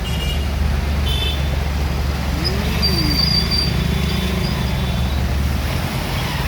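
Street traffic noise: a steady low rumble of passing vehicles, with a faint short rising-and-falling tone about halfway through.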